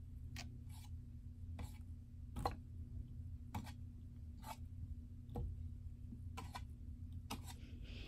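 42-inch Hampton Bay Glendale ceiling fan running: a steady low motor hum with light clicks about once a second.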